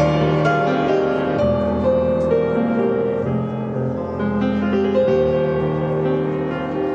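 Instrumental hymn music with no singing: an interlude between verses, held notes and chords changing every half second to a second.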